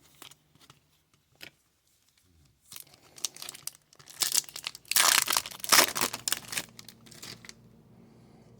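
A foil wrapper on a pack of Upper Deck hockey cards crinkling and being torn open. It is quiet for the first couple of seconds, then the rustling builds and is loudest a little past the middle before dying down.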